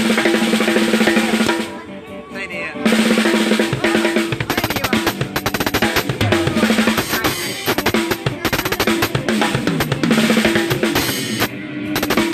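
Drum kit played in fast snare and tom fills with bass-drum hits, over sustained low pitched notes; the playing breaks off briefly about two seconds in, then resumes.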